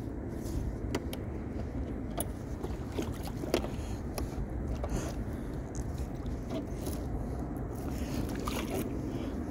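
Steady low rumble with scattered light clicks and knocks in a small fishing boat.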